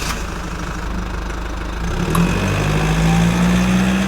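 Acura MDX engine idling; about two seconds in a steady low droning tone comes in and grows louder, the power steering whine heard when the steering wheel is turned.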